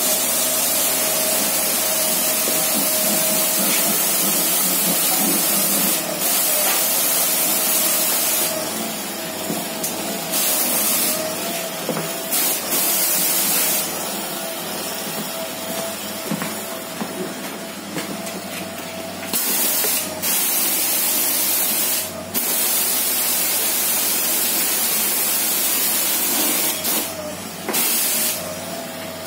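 Disinfectant spraying from a hose nozzle inside a bus, a loud steady hiss that stops and restarts several times. A steady hum runs underneath.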